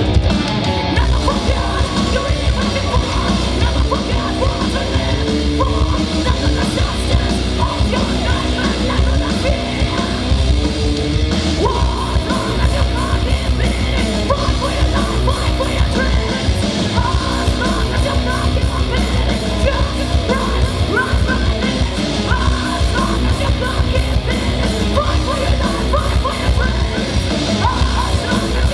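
Live heavy metal band playing a song: distorted electric guitars, bass and pounding drums under a female singer's vocals, amplified through a concert PA.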